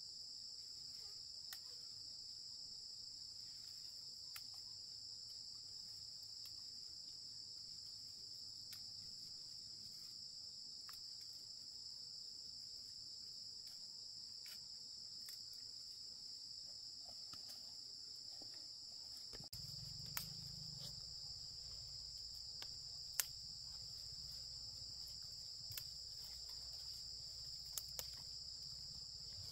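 Insects chirring in a steady, high-pitched drone, with scattered sharp clicks. A low background rumble comes in about two thirds of the way through.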